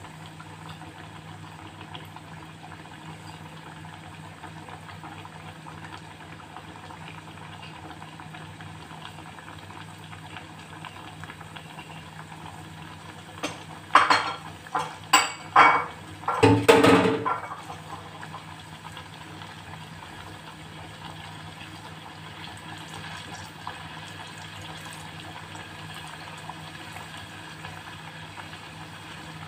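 Pot of elephant yam pieces bubbling hard on a gas burner: a steady bubbling hiss. About halfway through, a few loud knocks and clatter over two or three seconds.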